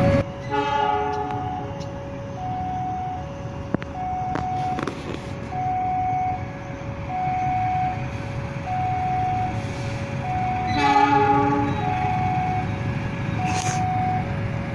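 Railway level-crossing warning signal sounding a steady two-tone alternating chime. Over it, an approaching diesel locomotive sounds its horn twice, about half a second in and again around eleven seconds in.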